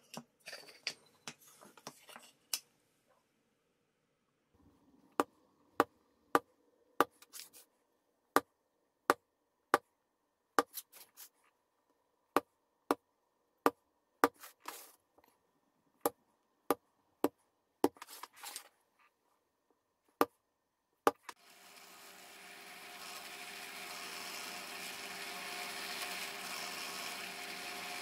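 Thin wooden boards shuffled on a workbench, then a long run of sharp single taps, under a second apart, as a plastic-faced mallet strikes a centre punch to mark hole centres. Near the end a bench drill press motor starts, builds up over a few seconds and runs steadily while drilling holes.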